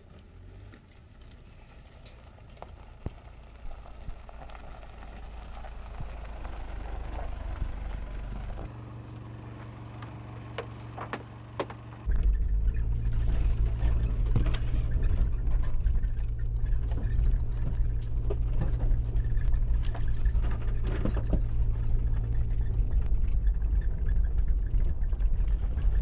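A ute's engine approaching, growing steadily louder over several seconds. About twelve seconds in it jumps to a loud, steady engine drone close by, with scattered knocks and rattles.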